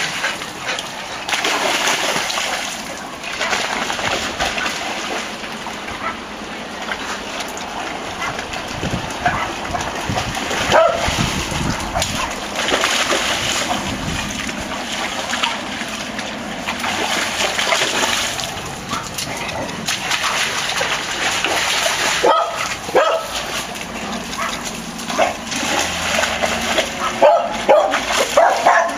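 Dogs running and play-fighting through shallow floodwater, their paws splashing and splattering in uneven bursts that swell and fall every few seconds. A few short barks come in between, more of them near the end.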